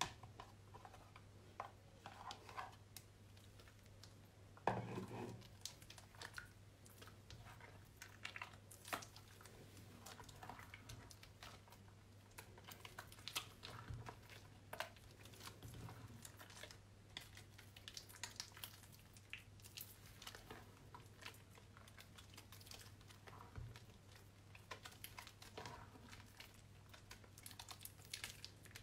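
Hands squishing and kneading soaked, mushy soap in soapy water: faint, irregular wet crackles and squelches, with one louder squelch about five seconds in. A steady low hum runs underneath.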